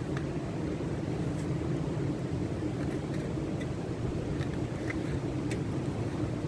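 Wood campfire crackling with a few small, sparse pops, over a steady low rush of wind and water.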